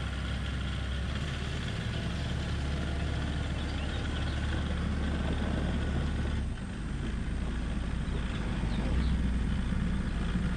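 Farm tractor engine running steadily as the tractor is moved, with a brief drop in level and a change in its low pitch about two-thirds of the way through.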